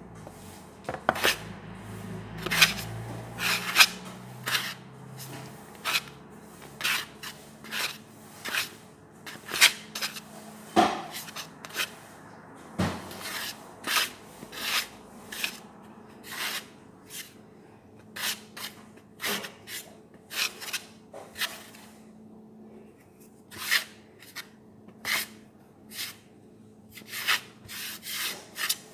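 Hands pressing and rubbing marinated chicken fillets into dry flour in a large metal pan: a run of short, dry rasping scrapes, roughly one or two a second.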